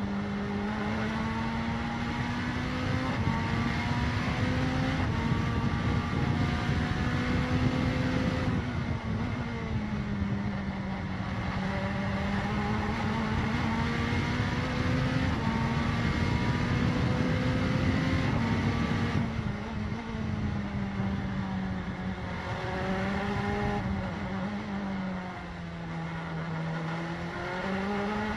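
Mazda prototype race car's turbocharged 2.0-litre four-cylinder engine running hard, heard from inside the cockpit. Its pitch climbs under acceleration and drops off several times when slowing for corners, over a constant rush of wind and tyre noise.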